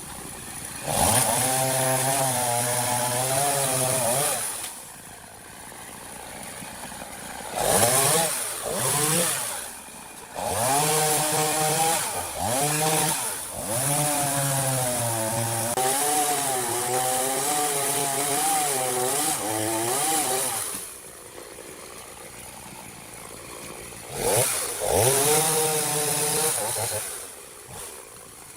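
Two-stroke chainsaw revved to full throttle in four bursts while cutting into wood, the engine pitch wavering and sagging under load. The longest cut runs about ten seconds in the middle, and the saw drops back to a low idle between cuts.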